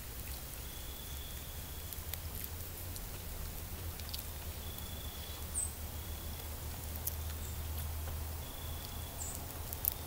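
Quiet rural outdoor ambience: a steady low rumble with faint, short, high-pitched calls every few seconds and a few light clicks.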